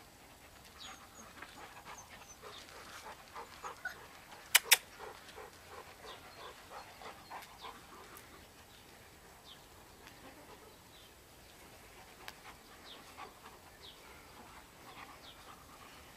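Six-week-old golden retriever puppies whimpering faintly now and then, with two sharp clicks in quick succession about four and a half seconds in.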